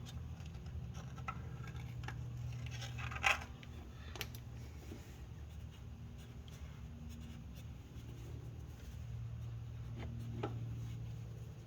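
Faint scratchy rubbing of a rag wiping gunk out of a Honda Civic's rear main seal bore, with a few light clicks, over a low steady hum.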